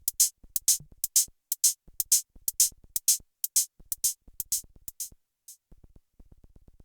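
Roland TR-8 drum machine playing a pattern of sharp hi-hat and cymbal hits, about four to five a second, with the kick and bass dropped out. The hats stop about five and a half seconds in, leaving only faint low clicks.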